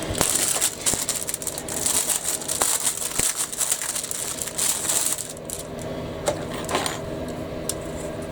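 Small hard plastic model-kit parts clicking and clattering as they are handled, with a rustling hiss, busiest in the first five seconds and then only a few scattered clicks, over a steady background hum.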